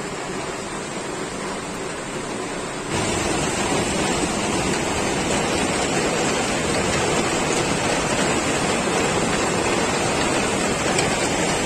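Heavy monsoon rain pouring steadily, a dense even hiss that jumps louder about three seconds in.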